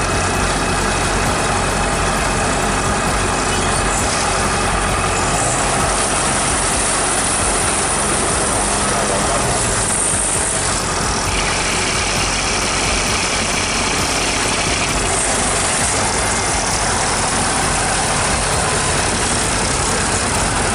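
Diesel engine of a farm machine running steadily, with a constant low engine hum and no pauses.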